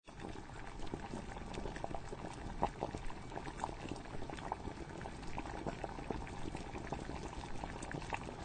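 Hotcake batter frying in hot oil in a frying pan: a steady sizzle with a dense crackle of small pops.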